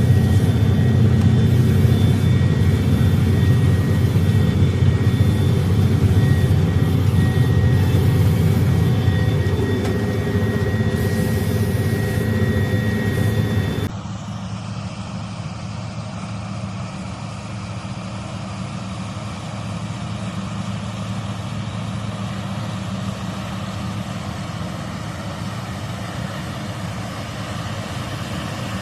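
A Palesse KZS-812 combine harvester at work, its D-260 inline-six diesel running steadily under load with a thin high whine over it. About halfway through, the sound drops suddenly to a quieter, duller steady engine hum.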